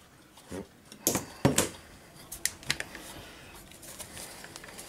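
Handling noise from a router and its plastic speed-control box being picked up, moved and set down on a workbench: a cluster of sharp clicks and knocks from about one to one and a half seconds in, then a few lighter clicks. The router is not running.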